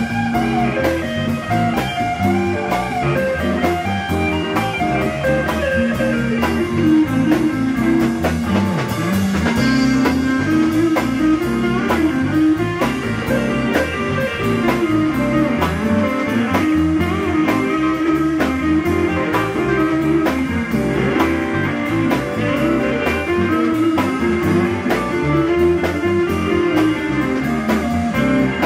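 Live blues-rock band: a Telecaster-style electric guitar plays a melodic lead line with bending notes over a steady drum-kit beat.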